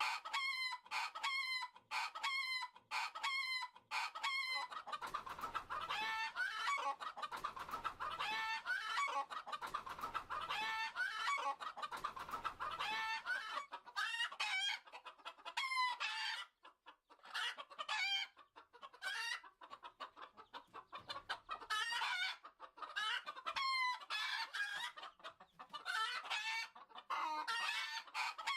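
Domestic chickens clucking and calling: a run of short repeated calls about two a second, then many birds calling over one another for several seconds, then spaced calls again.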